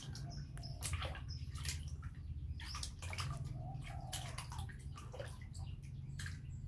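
Water splashing and dripping in a plastic basin as a young monkey paddles its hands in it: many small, irregular splashes.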